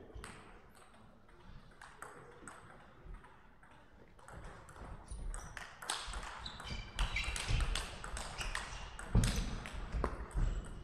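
Table tennis ball clicking off the rackets and the table during rallies, the hits sparse at first and coming thick and fast in the second half, with a heavier thump about nine seconds in.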